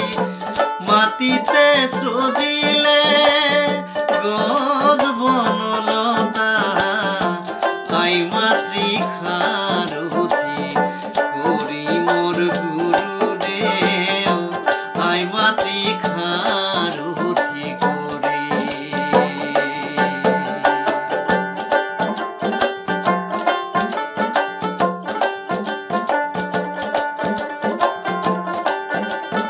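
Folk music: a small plucked long-necked lute and a small hand drum playing a steady rhythm, with a man singing over the first half.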